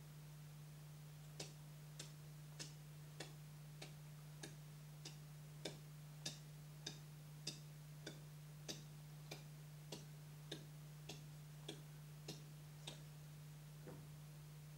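Even, clock-like ticking, about twenty sharp ticks a little over half a second apart, starting about a second and a half in and stopping near the end, over a low steady hum.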